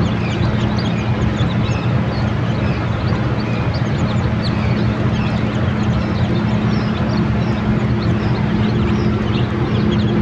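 A crowd of Plymouth Rock chicks peeping: many short, high cheeps overlapping continuously. Underneath runs a steady low mechanical hum.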